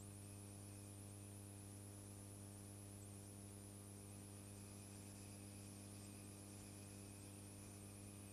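Near silence: a steady electrical hum with a stack of overtones, and a faint warbling high whistle underneath.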